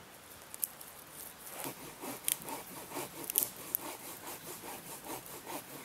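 Newly lit kindling fire of dry twigs crackling with sharp irregular pops, over repeated scraping and rustling of sticks being handled at the fire.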